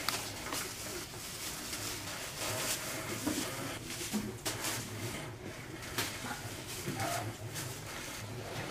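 A battery-powered spinning cat teaser toy running, with a steady motor hum and irregular clicks and taps as its wand swings and kittens bat at it.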